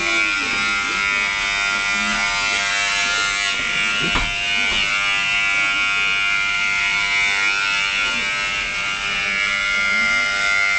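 Corded electric hair clippers buzzing steadily as they cut through long hair, with one brief knock about four seconds in.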